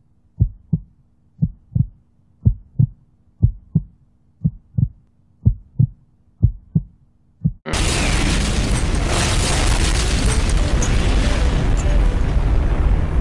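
Heartbeat sound effect: a steady double thump about once a second. About eight seconds in, a loud, sustained explosion blast abruptly takes over.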